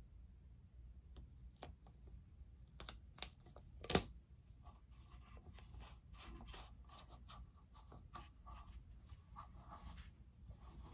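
Faint crinkling and rubbing of transfer tape as a vinyl decal is pressed and smoothed onto an epoxy-coated cup by hand. There are scattered light clicks, and a sharp click about four seconds in is the loudest sound.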